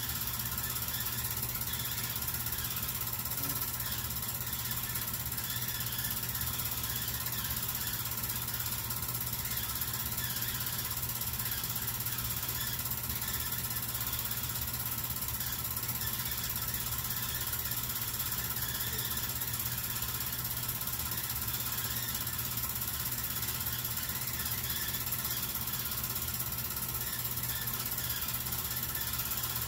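8mm film projector running: a steady mechanical clatter from the film transport over a constant low hum, unchanging throughout.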